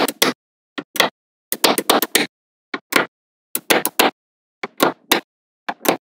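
Small neodymium magnetic balls clicking and snapping together as they are set into place, in quick little clusters of sharp clicks about every half second to second.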